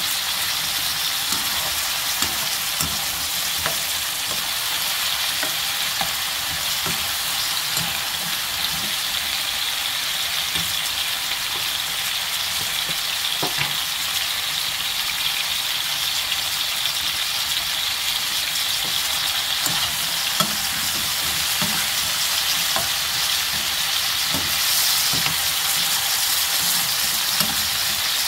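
Sliced pumpkin sizzling steadily in hot oil in a non-stick frying pan, stirred with a metal spoon that scrapes and clicks against the pan now and then.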